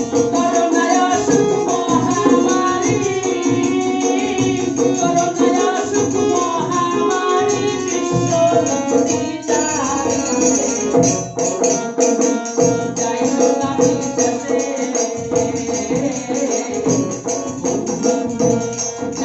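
Live Bengali Baul folk song: a man sings a wavering melody while a double-headed barrel drum keeps a steady beat, over a steady drone.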